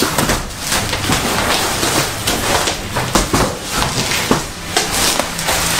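Packaging being handled and opened to unpack acrylic mould halves: an irregular run of short crackling, rustling and scraping noises.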